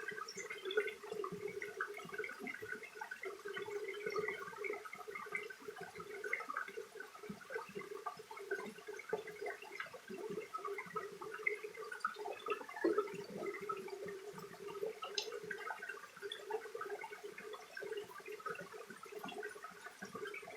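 Mountain stream flowing with a steady bubbling gurgle.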